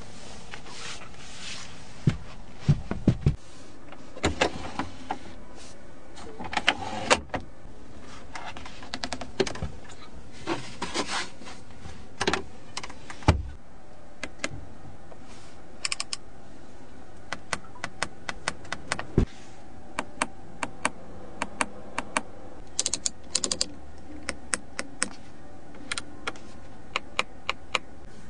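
Irregular sharp clicks of buttons and knobs being pressed on a Hongqi LS7's rear-seat climate and media control panel, over a steady background hum.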